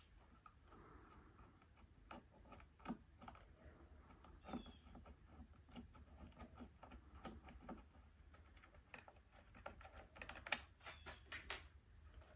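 Faint, irregular small clicks and taps of a screwdriver working the handle screws out of a vintage Homelite XL2 Auto chainsaw, with a few sharper clicks near the end.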